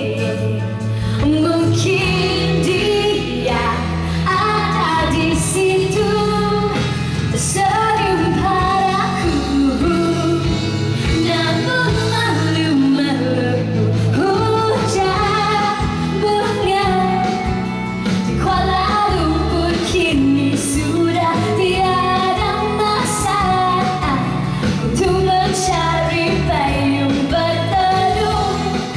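A woman singing a pop song live into a handheld microphone, amplified through loudspeakers over a pop music accompaniment with a steady bass line.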